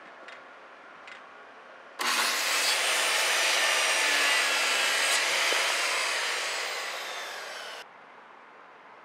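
Handheld circular saw cutting through a pine board, starting suddenly about two seconds in after a couple of faint clicks, and stopping abruptly near the end.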